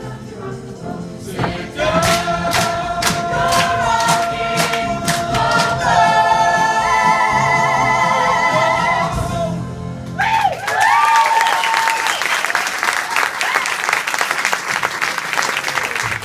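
Stage-musical ensemble singing the big final held chord of a show tune over accompaniment, punctuated by a run of sharp hits at the start of the held note. The music cuts off about ten seconds in and the audience breaks into applause and cheering, with a whoop.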